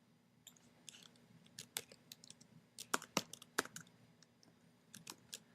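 Computer keyboard being typed on, with irregular quick keystroke clicks, the loudest bunched around the middle.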